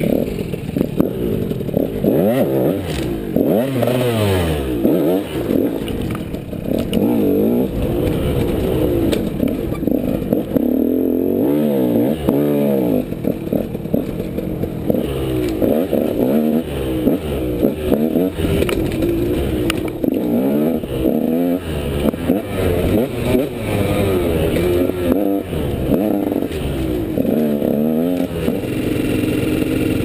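Dirt bike engine revving up and down again and again as the throttle is opened and closed.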